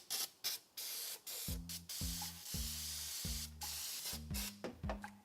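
Engine degreaser being sprayed over an engine bay in a string of short hissing bursts with brief gaps between them. Instrumental music with low notes comes in underneath about a second and a half in.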